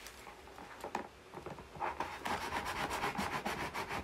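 Scissor blade scraping along the sealed edge of a cardboard box, cutting the seal: a quiet start with a faint tap, then from about two seconds in a fast, scratchy rasping at about five strokes a second.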